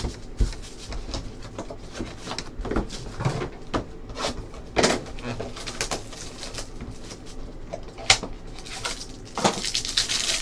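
Plastic shrink-wrap crinkling and tearing as a trading-card box is unwrapped, with scattered clicks and rustles of the cardboard box and the cards being handled. A sharp snap comes about eight seconds in, and the rustling is densest near the end.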